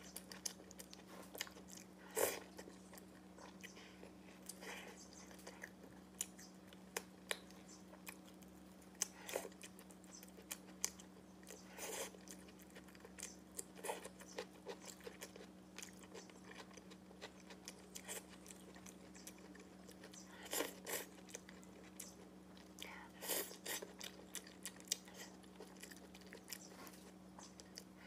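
Close-up eating sounds: chewing and biting soft food, a steamed bun and stir-fried tomato and egg, with many short irregular wet clicks and smacks of the mouth. A faint steady low hum runs underneath.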